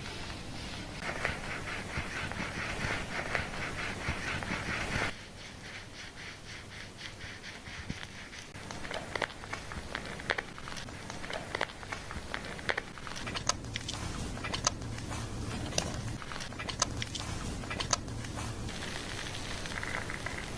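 Hands scrubbing a lathered scalp during a shampoo. A rhythmic, scratchy rubbing for the first five seconds stops abruptly, then gives way to softer rubbing and crackling foam with scattered sharp clicks. The scrubbing picks up again near the end.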